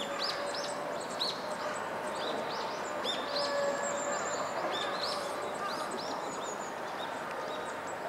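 Hawfinch giving short, high, sharp calls, several a second in loose runs, thinning out in the last couple of seconds.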